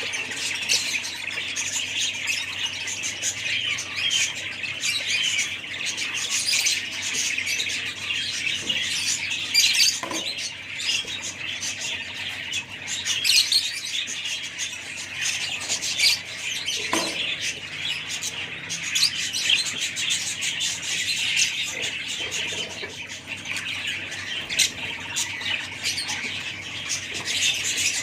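A flock of budgerigars chattering and chirping without a break, many birds calling over one another, with a few louder calls standing out.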